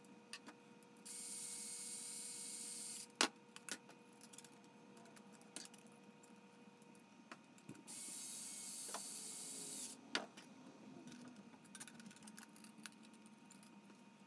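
Black+Decker cordless screwdriver running in two steady bursts of about two seconds each, driving M3 screws into 3D-printed PLA planks, with a few sharp clicks and knocks between the runs.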